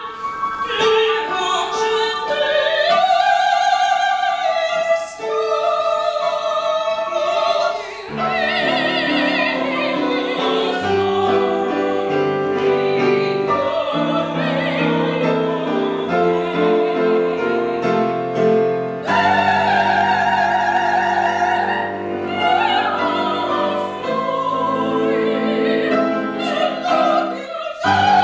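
Women's operatic voices singing with wide vibrato over piano accompaniment. The piano comes in more fully about eight seconds in.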